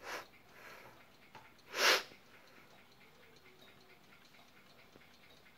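Brass ship's bulkhead clock by N.V. Observator Rotterdam ticking faintly and steadily. A short, noisy breath close to the microphone comes about two seconds in and is the loudest sound, with a weaker one at the very start.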